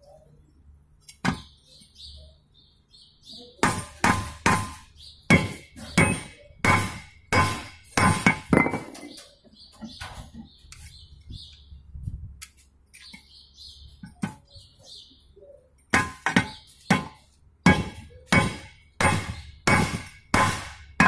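Hammer blows on a steel truck brake shoe as a new brake lining is riveted on, each strike clanking with a short metallic ring. The blows come about twice a second in two runs, with a lull of several seconds between.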